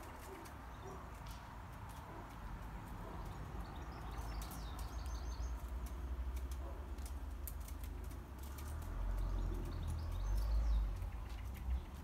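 Small garden birds at a feeder chirping a few times, among scattered sharp ticks and taps. A low rumble runs underneath and swells near the end.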